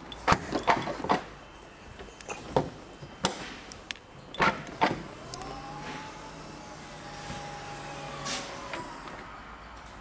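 A few sharp clicks and knocks from the Audi A4 estate's tailgate, then its electric tailgate motor whines steadily for about three and a half seconds as the lid lifts, stopping near the end.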